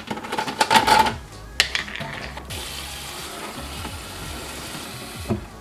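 Water running into the removable tank of a humidifier as it is filled: a steady hiss of flowing water that stops sharply near the end. A few handling knocks and clicks come before it in the first second or so.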